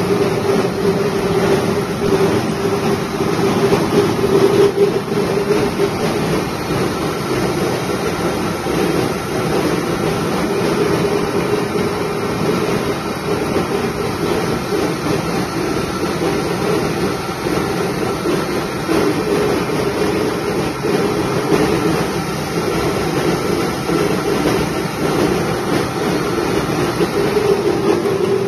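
Mini rubber-roller rice mill running steadily under load, milling paddy into white rice, a constant mechanical hum with a dense rushing noise over it.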